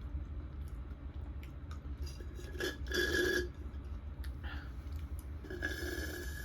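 Eating and tableware sounds at a close microphone: small clicks of utensils and dishes, and two noisy stretches about a second long, one around three seconds in and one near the end, over a steady low hum.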